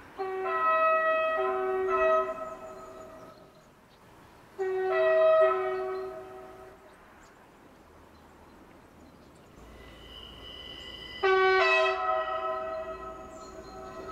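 Alstom Coradia iLint hydrogen train's horn sounding three two-tone blasts as it approaches, each about two seconds long, the last about eleven seconds in and loudest at its start. The train's running noise grows underneath in the last few seconds.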